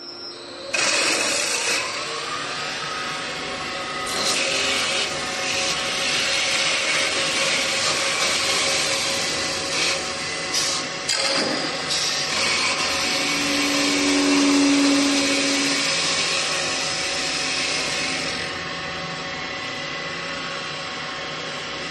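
Automatic wood-turning lathe running, its cutters shaving solid wood table-leg blanks: a loud steady hiss of cutting over a machine hum. The cutting starts suddenly about a second in and gets less bright near the end.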